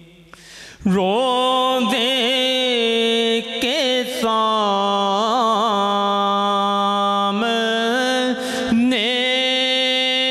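A man's solo voice singing a naat into a microphone, drawing out long held notes with wavering melodic ornaments. The voice comes in just under a second in after a brief pause.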